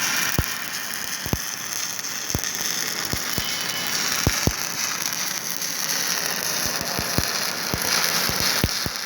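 Electric arc welding: a steady frying hiss with irregular sharp pops and crackles.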